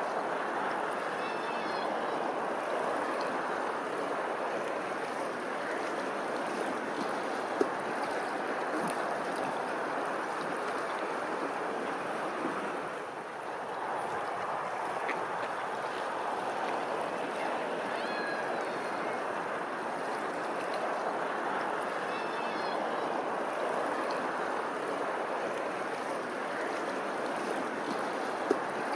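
Running water: a steady rushing, with a few faint high chirps and two brief sharp clicks.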